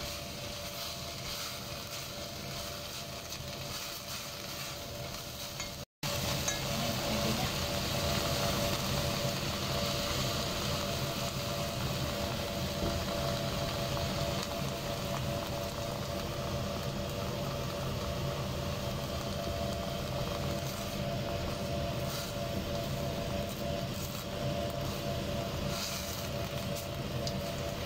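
Diced vegetables and chicken sizzling in oil in an enamelled cast-iron pot while a spatula stirs and scrapes them; after a brief cut about six seconds in the sizzle is louder and brighter. A faint steady hum runs underneath.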